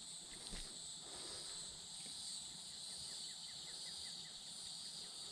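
Faint steady high-pitched drone of an insect chorus, with a short quick run of about nine chirps, roughly five a second, in the middle.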